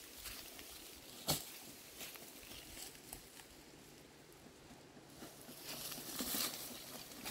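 Faint rustling and crackling, with one sharp click about a second in and the rustling growing louder near the end.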